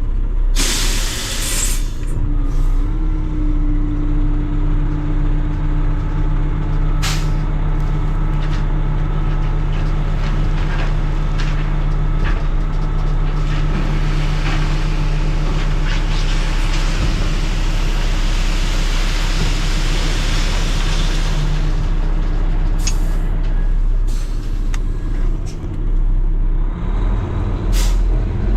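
Kenworth T880 dump truck's diesel engine running steadily, with a sharp burst of air hiss from the air system about a second in and short air hisses later. In the middle a louder rushing noise swells for several seconds and fades.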